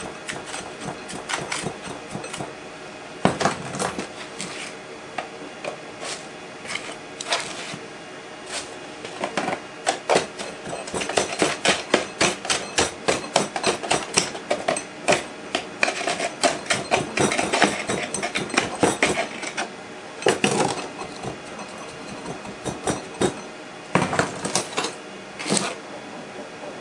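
Foundry sand being rammed into a wooden core box with a hand rod: a series of sharp taps and knocks, scattered at first, then a steady run of quick taps, about three a second, through the middle, with a few more knocks near the end.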